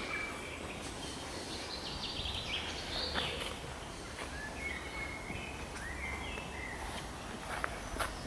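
Songbirds singing outdoors: a quick run of notes about two seconds in, then several short whistled notes, over a steady background of outdoor noise.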